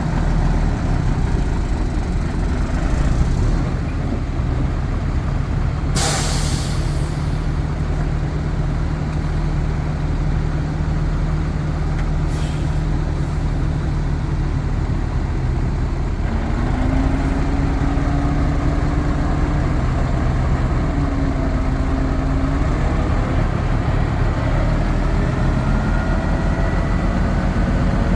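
Heavy diesel engines of earthmoving machinery running steadily, with a sharp air-brake hiss about six seconds in and a shorter one a few seconds later. In the second half a humming tone comes and goes, then several tones climb in pitch near the end as an engine works harder.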